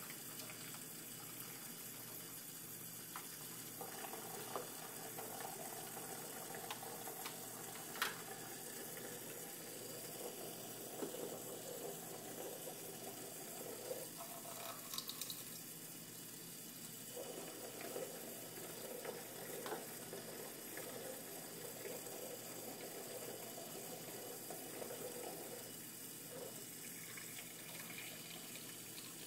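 Kitchen faucet running a thin stream into a sink of soapy water, with splashing as small plastic dishes are rinsed under it. A few light clicks of the plastic dishes knocking, the sharpest about eight seconds in.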